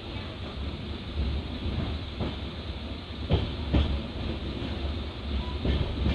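Passenger train running along the track: a steady low rumble of wheels on rails, with a handful of sharp clacks as the wheels cross rail joints, the loudest a little over three seconds in.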